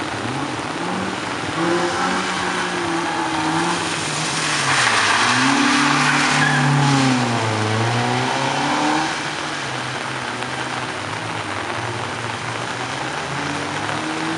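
Honda Civic's four-cylinder engine revving up and down repeatedly through a slalom run, loudest as it passes close about halfway through, with a hiss of tyres on the wet surface. Steady rain hiss throughout.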